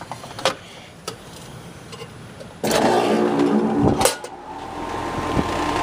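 Amana Prestige condensing unit's compressor starting about two and a half seconds in: a sudden loud hum that settles into a steady run, with a sharp click about a second later. It starts and runs normally now that the burnt common wire from the contactor to the capacitor has been remade.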